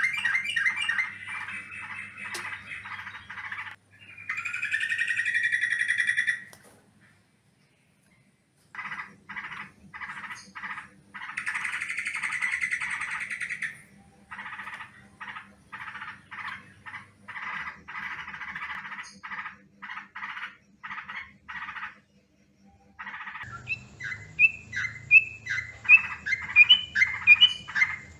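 Yellow-vented bulbul (trucukan) calling: runs of quick, repeated chattering notes mixed with harsher, denser churring bursts, in spliced stretches with a short silent gap about seven seconds in. It is a lure recording meant to draw wild birds of the same species.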